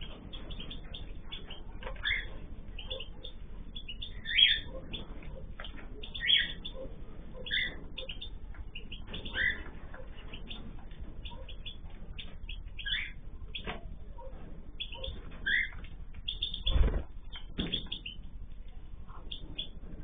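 Cage birds in an aviary, cockatiels and small finches, chirping and calling over and over, with a handful of louder calls standing out among the quicker chirps. A sudden thump sounds a little before the end.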